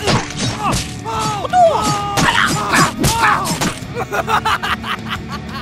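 Background music mixed with short wordless vocal cries and groans, with frequent knocks and clicks throughout.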